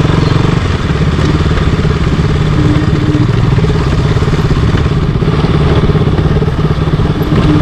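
Single-cylinder motorcycle engine running at low, steady revs while riding a slippery dirt track, heard through a helmet-mounted camera.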